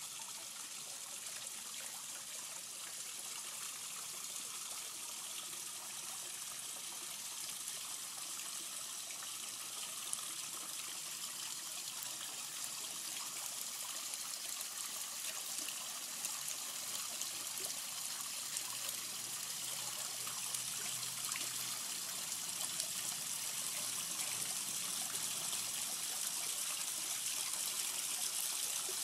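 Water splashing and trickling down a small waterfall, a steady even rush that grows slightly louder over the stretch.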